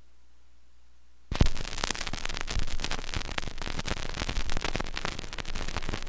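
Old vinyl record playing: faint hiss, then about a second in the stylus drops into the groove and dense surface crackle and pops set in.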